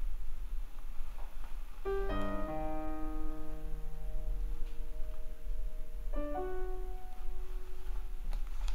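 Soft solo piano: a few notes struck about two seconds in and left to ring out, then a second group of notes about six seconds in, over a low steady hum.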